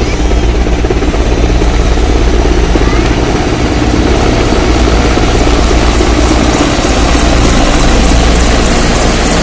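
A formation of three Indian Air Force Mi-17 helicopters flying low overhead, their rotors and turbines making a loud, steady drone.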